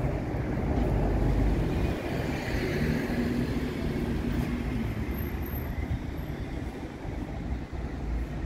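KVB Stadtbahn light-rail train at the platform: a steady low rumble from its running equipment, with a faint whine rising and fading again between about two and four seconds in.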